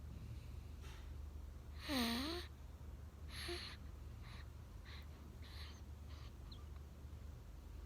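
A sleeping baby snoring: a string of short, soft snuffling breaths, with one louder squeaky snort about two seconds in whose pitch dips and rises. A steady low hum runs underneath.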